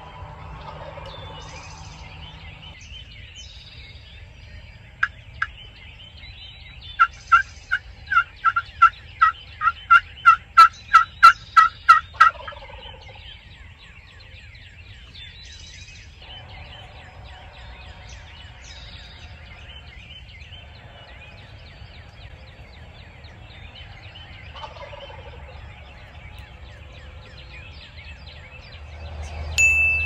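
A hunter's turkey call worked in a quick string of yelps, about two or three a second, is answered at once by a wild turkey gobbler gobbling from the roost, a falling rattling call. The gobbler gobbles again about 25 seconds in, and songbirds sing throughout.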